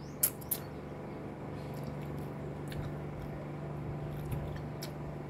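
Quiet sounds of eating: chewing and mouth noises with scattered small clicks, two sharper ones in the first second, over a steady low hum.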